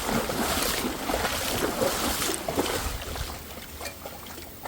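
Creek water splashing and trickling, with a scatter of small irregular splashes and knocks. It is busiest for about the first three seconds, then quieter.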